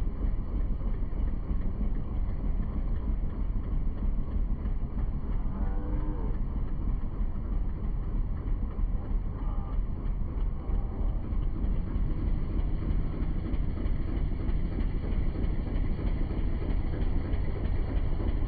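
Boat motor running steadily, a constant low rumble. A couple of short, faint calls are heard briefly over it.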